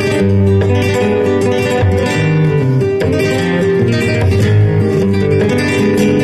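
Flamenco music led by strummed acoustic guitar, playing steadily without a pause.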